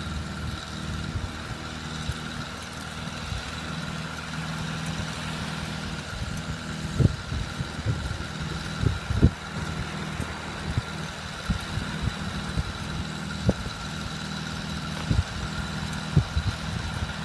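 Pickup truck's engine running steadily while the truck is stuck in soft beach sand and being towed out, with a few dull thumps now and then.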